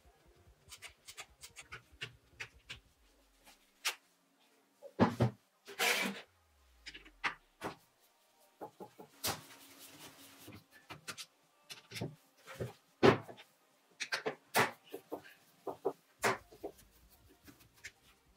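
Irregular clicks, knocks and scrapes of an old cordless drill's plastic and metal housing being handled on a wooden workbench, with a screwdriver working at the housing screws. A few sharper knocks stand out, about five, six and thirteen seconds in.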